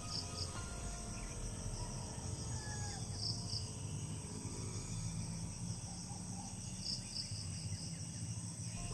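A steady chorus of insects chirping in tropical undergrowth: a continuous high trill with a few louder short chirps scattered through it.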